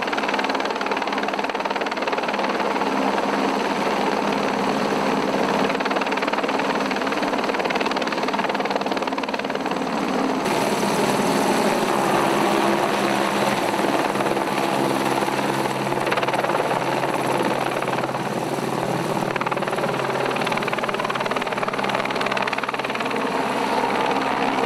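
Helicopter hovering overhead with a rescue basket slung on a long line: steady rotor and engine noise.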